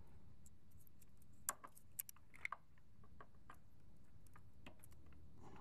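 Small plastic littleBits modules clicking as they are handled and snapped together by their magnetic connectors: a few light, irregular clicks, the loudest about a second and a half and two to two and a half seconds in, over a faint low background hum.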